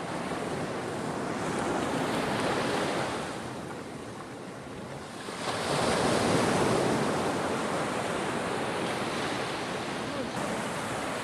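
Small waves breaking and washing up a sandy beach: two surges of surf, the second coming in suddenly about halfway through and loudest, then slowly easing.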